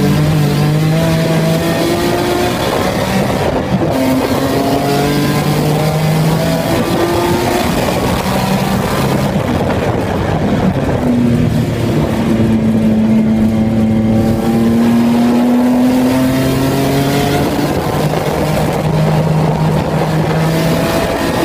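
Race-prepared BMW E46 3 Series engine heard from inside its stripped, caged cabin, accelerating hard on track. Its pitch climbs in each gear and drops at the upshifts, over steady road and wind noise.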